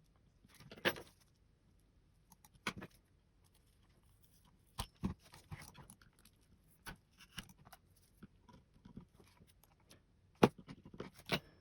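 Small scattered taps, clicks and scrapes of a metal tool against the plastic underside of a Razer Diamondback mouse as its feet are pried up to check for hidden screws. The sharpest clicks come about a second in and twice near the end.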